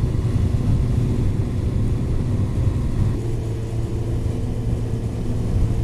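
Yamaha FZ8's inline-four engine running under way, heard with heavy wind rumble on a helmet-mounted microphone; the engine note shifts about three seconds in and then holds steady.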